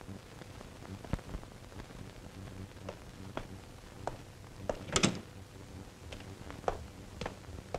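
Footsteps of hard-soled shoes on a marble floor, about one every half second, with one louder knock about five seconds in, over a faint low hum.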